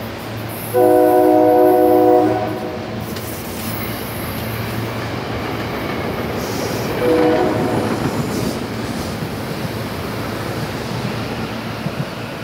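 A SEPTA commuter train's horn sounds one long chord of about a second and a half. A short blast follows about five seconds later. Both come over the steady rumble and hum of a Silverliner electric multiple-unit train rolling past on the track.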